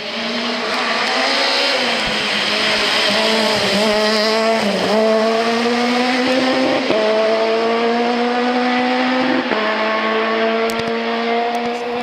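Peugeot 207 S2000 rally car's naturally aspirated four-cylinder engine running hard at high revs, under load. Its pitch climbs slowly, with brief drops about five times.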